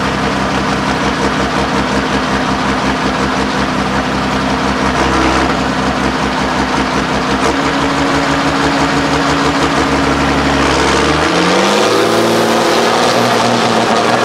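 Mercedes-Benz 6x6 trial truck's diesel engine running steadily at low revs while crawling on a rocky climb. About eleven seconds in, the revs rise sharply and hold higher as the throttle is opened and the exhaust stack blows black smoke.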